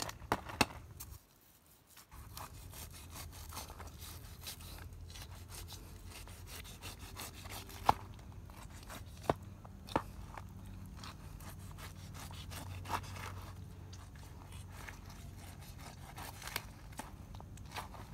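Knife slicing and scraping through the charred skin and soft flesh of a roasted pineapple, with a few sharp clicks scattered through.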